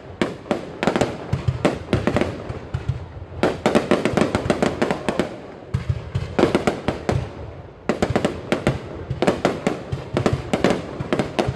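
Aerial fireworks bursting in rapid volleys, many sharp bangs close together, with brief lulls about three and eight seconds in.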